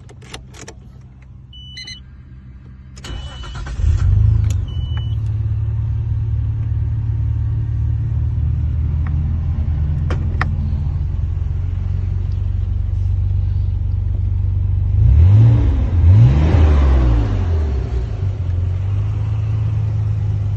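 Nissan Skyline R32 GT-R's RB26DETT twin-turbo straight-six with an HKS cutback exhaust, heard from inside the cabin. After two short beeps it cranks and starts about three to four seconds in, settles into a steady idle around 1,000 rpm, and is blipped twice near the end before dropping back to idle.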